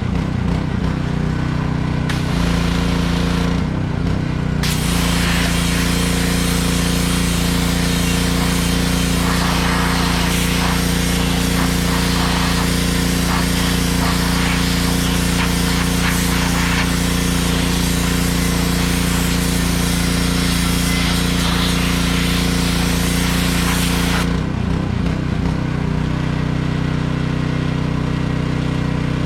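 Engine-driven pressure washer running steadily while it sprays through a wet-sandblasting attachment. The loud spray hiss breaks off briefly twice near the start and cuts off about three-quarters of the way through, leaving the engine running alone.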